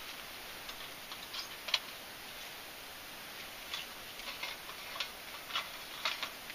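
Small twig fire burning in a compact metal Element wood stove, giving off scattered light crackles and ticks at an uneven pace.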